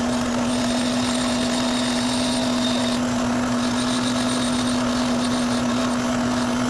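Electric bench buffing wheel running steadily, a constant motor hum under a rushing hiss as metal parts are buffed clean.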